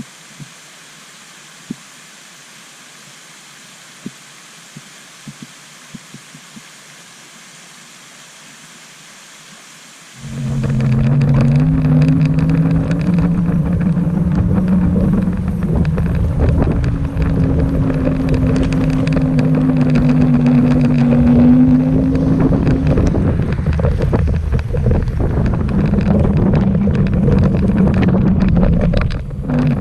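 Steady hiss with a few sharp ticks, then about ten seconds in a loud rush of wind and road noise with a low hum begins and carries on: an electric bike being ridden, with wind buffeting the microphone.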